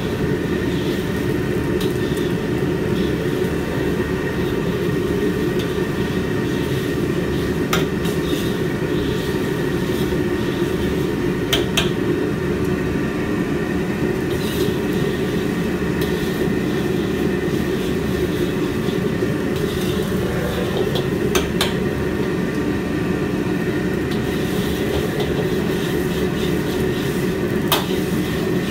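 Gas wok burner running with a steady rumble under the wok, while a metal wok spatula clinks and scrapes against the wok a handful of times as scrambled egg is stirred.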